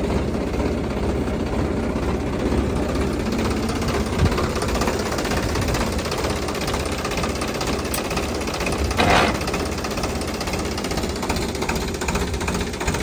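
Diesel engine of a Sonalika Mileage Master 39 tractor running steadily at idle with a knocking clatter, with one brief louder sound about nine seconds in.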